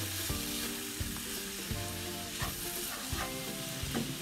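Cabbage and grated coconut sizzling in a hot wok as a wooden spatula stirs it, with repeated scrapes and knocks of the spatula against the pan.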